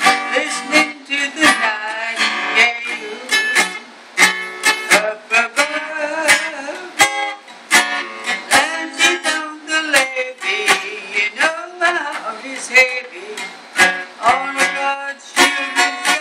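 Taylor 714ce acoustic guitar played by hand: picked notes and chords ring out in a steady rhythm.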